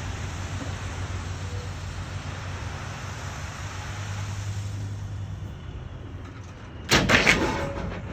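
Demolition debris thrown into a dumpster: a loud crash of several impacts in quick succession about seven seconds in, over a steady low hum that fades out about five seconds in.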